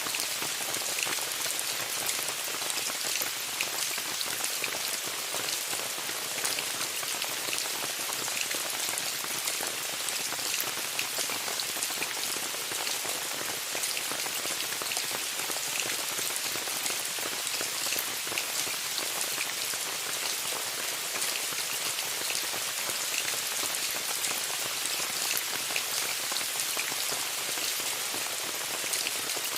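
Steady rain falling on a tent, a continuous hiss with many individual drops ticking on the fabric.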